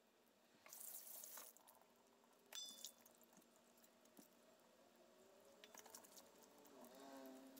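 Near silence: faint handling of raw chicken wings and a knife at a stainless steel sink. There is a short hiss about a second in, and a light ringing clink a little before three seconds.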